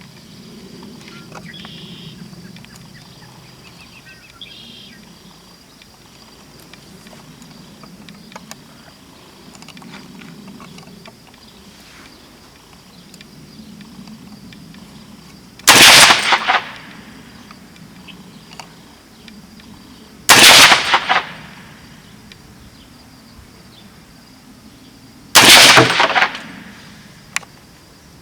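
.300 AAC Blackout AR-15 rifle with a 16-inch barrel firing three single shots about five seconds apart, starting about halfway in, each followed by a short echo. Before the shots there is only a faint background.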